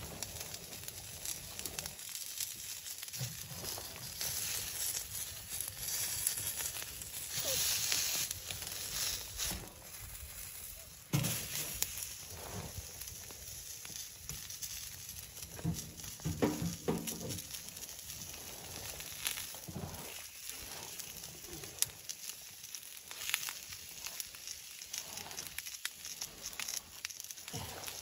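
Handling noises as raw chicken wings are laid out in a wire grill basket on a wood stove and the basket is shut: rustling, light metal clinks and a few sharp clicks, with faint crackles.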